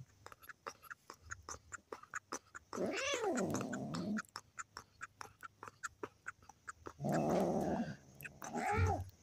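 A young cat meowing: one long call that rises and falls about three seconds in, then a rough, raspy cry followed by a shorter call near the end. Faint clicks throughout.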